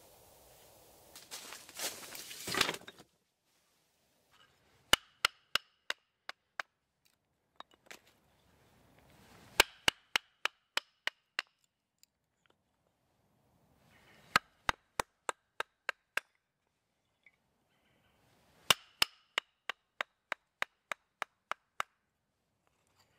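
Kindling being split with a blade on a wooden chopping block. There are four runs of quick, sharp wooden taps, about three a second, and each run opens with a harder crack. A rustle of movement comes in the first three seconds.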